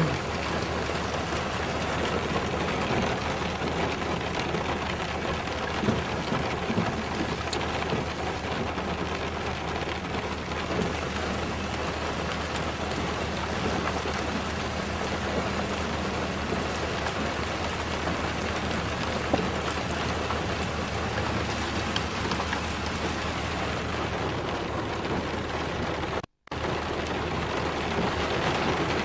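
Rain pattering on a four-wheel-drive vehicle as it drives, heard from inside the cabin, over a steady engine hum and road noise. The sound cuts out for a moment near the end.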